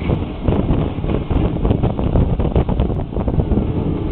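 Moving train heard from inside a carriage toilet: steady running rumble with irregular rattles and knocks, and water from the washbasin tap running into the sink.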